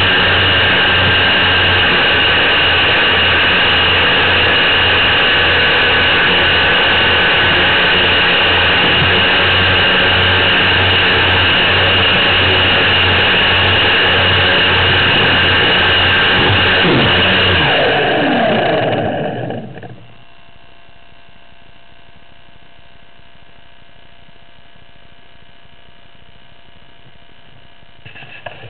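The motor and propeller of a radio-controlled model PBY Catalina, heard through its onboard camera, running loud and steady while the model slides over snow. The motor winds down about two-thirds of the way through and cuts off, leaving a faint steady hum.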